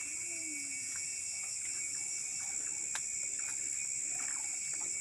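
A nighttime chorus of crickets and other insects in tropical forest, a steady, high, continuous trilling. A faint, low, wavering call comes in the first second, and a few light clicks follow.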